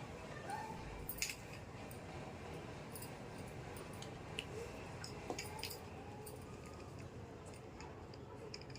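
Small plastic toy pieces being handled: scattered light clicks and taps over a steady low hiss, the sharpest about a second in.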